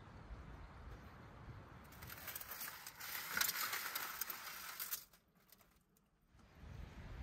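Stuffed turkey crackling and sizzling in its foil-lined roasting tray inside a wood-fired oven, a dense hiss of fine crackles for about three seconds that breaks off about five seconds in. Faint low outdoor background before and after.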